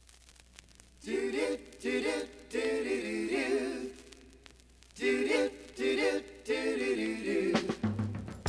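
Several voices singing in close harmony without accompaniment, in short phrases, played from a vinyl LP with faint surface crackle before the singing starts about a second in. Bass and band come in just before the end.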